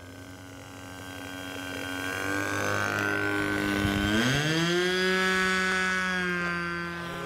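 Radio-controlled model airplane's engine running as the plane makes a low pass, getting louder as it comes near. About four seconds in its note rises sharply, then holds steady.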